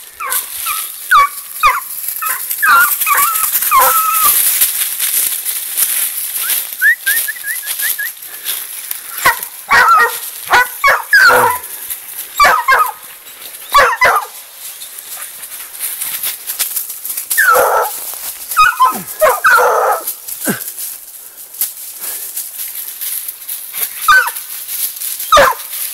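Pack of hunting hounds baying and barking in scattered bursts, several voices overlapping at different pitches, as they give tongue on a chase. A steady high hiss runs underneath.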